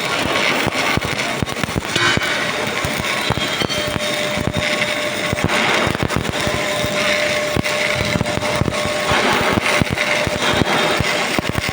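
Stick (arc) welding: the electrode's arc crackling and spitting steadily, a dense run of sharp clicks.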